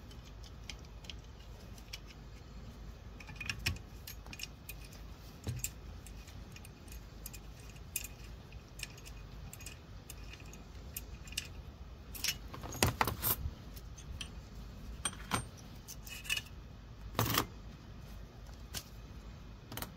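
Loose metal wheel-bearing parts (tapered roller bearings, races and seals) being handled and set down on a workbench: scattered light clinks and clicks, with a cluster of sharper clinks about two-thirds of the way through and one more near the end.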